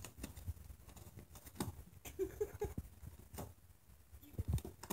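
Dog ripping and nosing through crinkly gift-wrapping paper: irregular rustling, crackling and tearing, with a louder knock near the end.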